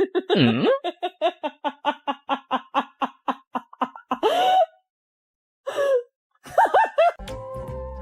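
A person laughing hard in a long run of rapid, even "ha" bursts, about six a second, after a rising-and-falling cry at the start. A few short voice sounds follow, and background music begins near the end.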